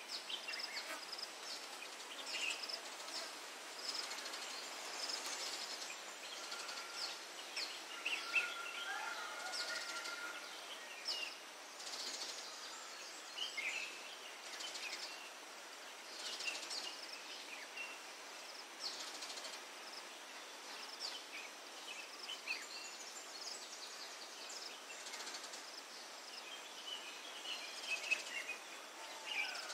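Outdoor nature ambience: birds giving many short chirps over a steady background hiss, with one longer held whistled note around eight to ten seconds in.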